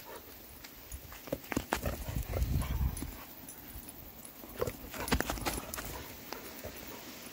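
A Vizsla moving about on dry grass: irregular thuds, scuffs and clicks as it runs and spins, with a low rumble about two seconds in.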